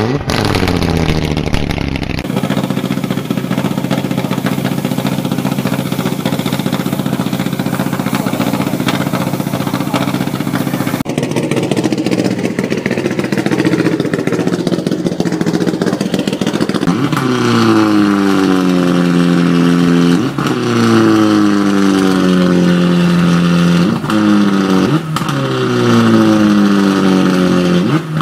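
Mitsubishi Lancer Evo 9 rally car's turbocharged four-cylinder engine running steadily at idle. In the second half it is blipped several times, the revs falling back after each blip.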